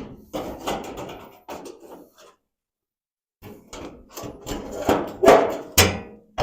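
Sheet-metal body panels clunking and scraping as they are handled and set in place, with a pause of about a second midway and a sharp clunk near the end.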